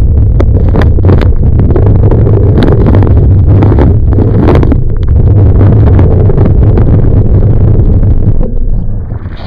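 Wind buffeting and water spray battering an action camera mounted on a slalom water ski, as the ski cuts across the water under tow. Loud and rough, with many sharp splash hits, easing about a second before the end.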